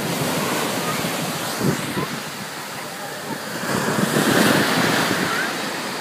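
Ocean surf breaking and washing in, with wind buffeting the microphone; the wash swells louder about four seconds in.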